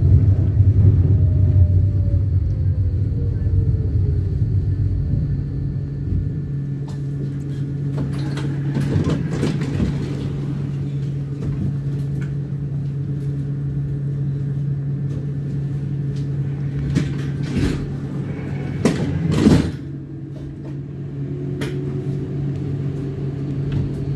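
Interior of a city public transport vehicle: its low running rumble dies away as it draws to a stop about six seconds in. It then stands with a steady low hum, with scattered knocks and clatters in the middle and again near the end.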